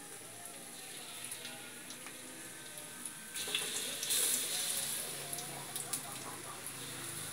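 Hot oil sizzling in a wok as battered fritters fry, growing into a louder, hissing sizzle about three and a half seconds in, with a few light knocks.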